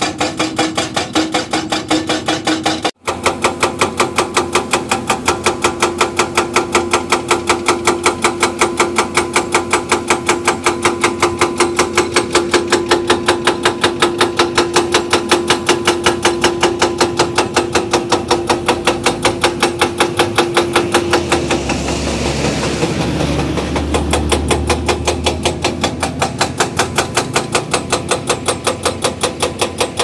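Hydraulic rock breaker on a Hyundai excavator hammering rock in rapid, even blows over the excavator's steady engine hum. About two-thirds through, the hum fades and a low rumble swells for a few seconds while the blows go on.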